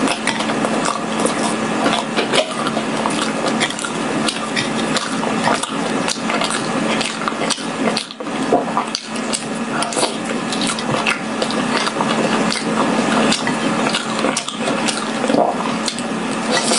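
Close-miked chewing of sticky glutinous rice cake with red bean paste filling: steady wet mouth sounds with many small clicks, over a low steady hum.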